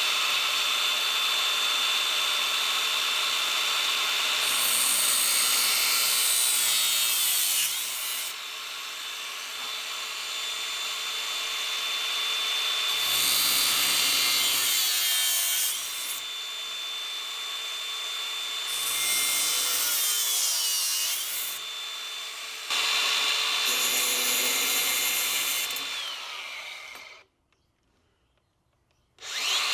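Wet tile saw running with a steady motor whine, making four cuts in a row. Each cut is louder and grittier, and the motor pitch sags under the load before recovering. The sound drops out suddenly near the end, then picks up again.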